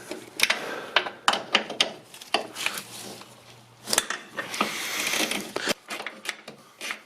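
Socket and ratchet working a tight 13 mm brake booster nut: irregular metallic clicks and knocks, with a short rasping scrape a little past the middle.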